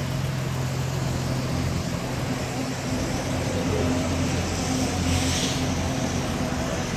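BMW E46 M3's 3.2-litre straight-six (S54) idling steadily through its exhaust, with a short hiss about five seconds in.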